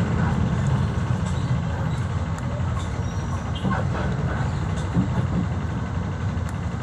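Bus engine running with a steady low rumble, heard from inside the passenger cabin, with a few faint ticks and rattles over it.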